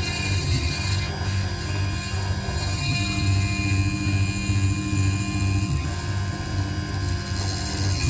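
IC grinding machine running, its spindle milling down the memory chip on an iPhone 6S logic board: a steady, pulsing low drone with steady whining tones that shift in pitch about three seconds in and again near six seconds.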